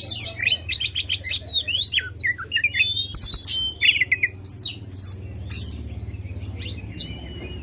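Oriental magpie-robin (kacer) singing loudly in a rapid run of varied whistles, trills and sharp chirps. After about five seconds it thins to a few sparse notes.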